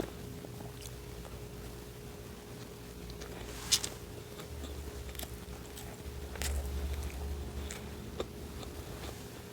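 Close-miked mouth sounds of a person chewing and biting food, with soft wet clicks and one sharp click a little under four seconds in.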